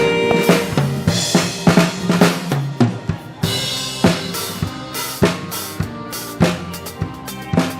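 Live dance-band music led by the drum kit: kick, snare and rimshots in a steady beat over a bass line, with cymbal washes about a second in and again around three and a half seconds in.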